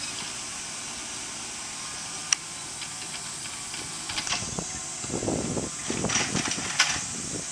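Footsteps scuffing and crunching on a gravel path strewn with dry leaves, irregular and loudest in the second half, over a steady high hiss, with a sharp click a little over two seconds in and another near the end.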